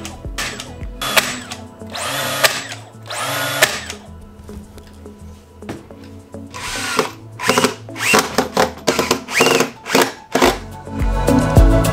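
Short bursts of cordless power tools working on a plywood cabinet box: a battery-powered brad nailer fires nails in the first few seconds, then a cordless drill runs briefly several times driving screws.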